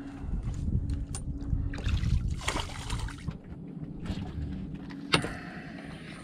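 Water slapping and lapping against a small fishing boat's hull, with one sharp click about five seconds in.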